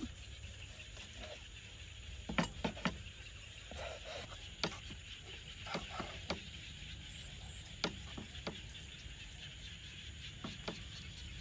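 Large kitchen knife slicing boiled cow udder and knocking on a wooden cutting board: about a dozen irregular sharp knocks, some in quick pairs. Underneath runs a steady high hiss of night insects.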